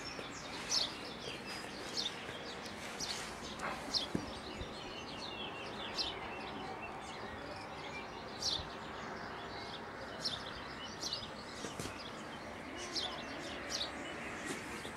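Small birds chirping, short high calls repeating every second or so over a steady background hiss of outdoor air.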